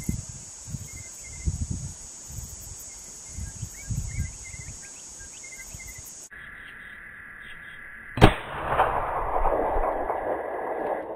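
A single hunting-rifle shot about eight seconds in, its report trailing off over the next two or three seconds. Before it, a steady buzz of insects with faint bird chirps and low wind rumble.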